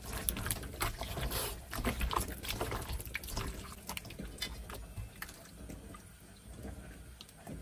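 Wet, sticky squelching and slapping of hands kneading a raw octopus in flour in a stainless steel bowl, squeezing off its slime; irregular squishes and small clicks, busier in the first few seconds and quieter later.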